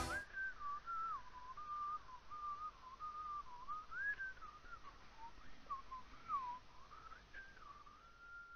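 A person whistling a wandering tune, faint and thin, with notes that step and slide up and down and a long held note near the end.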